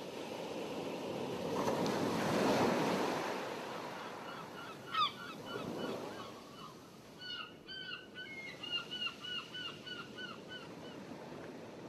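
Wind and water rushing across the microphone, swelling during the first few seconds. Then comes a run of bird calls: short, downward-bending notes repeated about two or three a second, fading out near the end.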